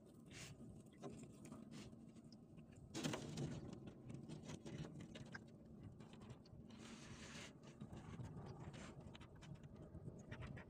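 Faint handling noises from hand work at a boat's side: scattered small clicks and knocks with rustling, a louder knock and rustle about three seconds in, and a brief wash of noise around seven seconds.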